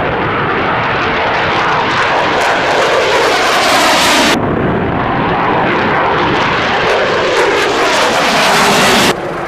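Aircraft engine noise, loud and steady, its hiss suddenly thinning about four and a half seconds in and the sound cutting off abruptly near the end.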